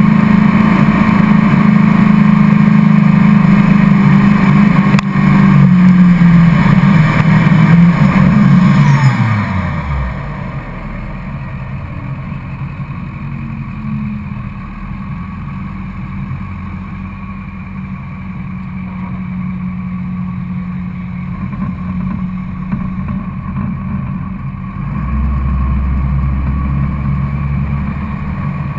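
Duramax diesel pickup engine running hard at high, steady revs, then winding down sharply to a low idle about nine seconds in: the end of a full-throttle truck-pull run. A deeper engine drone comes in near the end.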